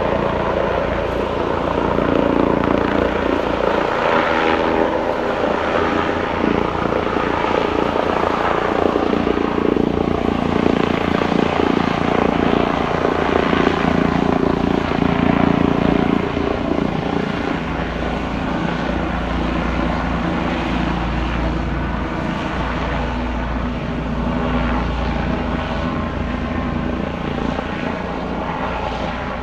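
AgustaWestland AW169 air ambulance helicopter taking off and climbing away, a steady turbine and rotor noise with a fast, even beat from the rotor blades. It is loudest through the first half and eases off a little in the second half as it moves away.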